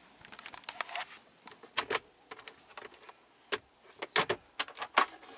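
Irregular sharp clicks and light knocks, a dozen or so scattered over a few seconds: small hard objects being handled or tapped inside a car.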